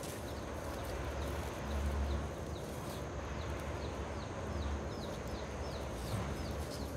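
A bird chirping over and over in short falling chirps, about three a second, with a couple of brief low rumbles.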